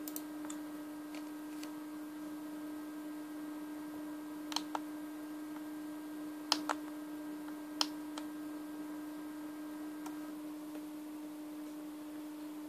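Sharp clicks of a computer pointer button: a quick pair, then another quick pair, then a single click, over a steady hum.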